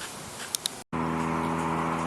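Rushing noise with two sharp clicks, then after an abrupt cut a steady, even hum of several tones from the homemade e-bike's converted washing-machine motor running.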